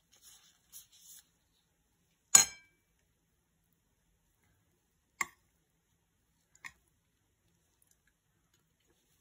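Metal spoon clinking against a ceramic plate while scooping rice: one loud clink a little over two seconds in, then two softer ones about five and six and a half seconds in.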